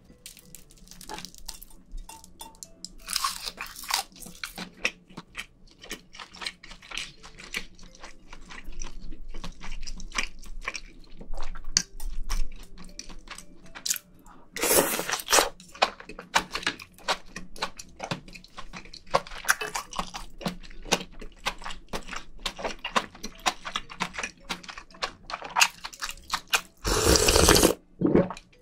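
Close-miked eating: wet chewing and crunching of seafood stew with bean sprouts and rice wrapped in roasted seaweed, as irregular clicks throughout. A few louder slurps, the last and longest near the end as broth is taken from a spoon.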